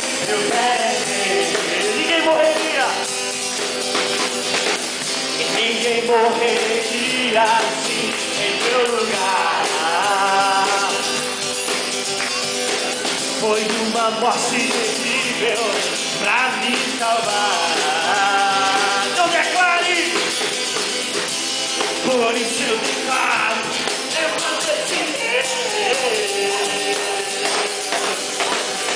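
A group singing a Portuguese worship song along with an acoustic guitar, which is strummed by a man at a microphone. The music runs steadily, with lively rhythmic accompaniment.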